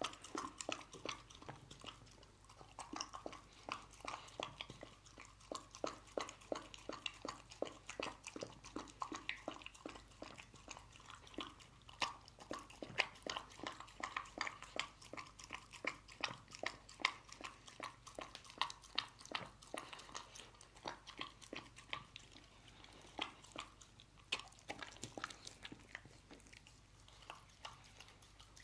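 A dog eating canned dog food, meat chunks in gravy, from a ceramic bowl: wet chewing and smacking, a dense run of quick irregular clicks with a few brief lulls.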